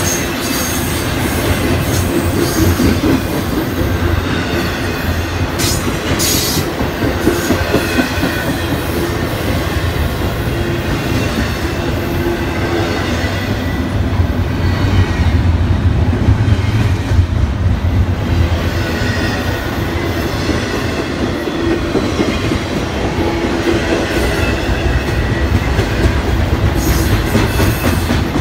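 Double-stack intermodal container cars of a Norfolk Southern freight train rolling past close by: a loud, steady rumble of steel wheels on rail, with clicks over the rail joints and some wheel squeal.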